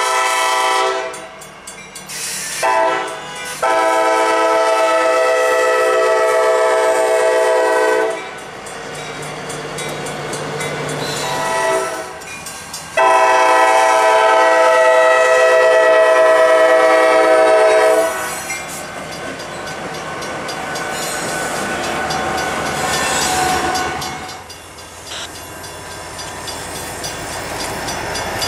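Norfolk Southern diesel locomotive blowing its air horn for a grade crossing: a series of long blasts with short ones between, the last long blast ending about two-thirds of the way through. Then the locomotives' engines and wheels rumble steadily past.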